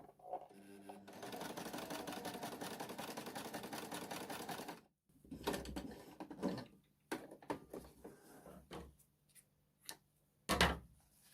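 Elna 120 sewing machine stitching for about four seconds, a fast, even rattle of the needle mechanism that stops abruptly. Scattered clicks and knocks follow as the machine and fabric are handled, with a louder thump near the end.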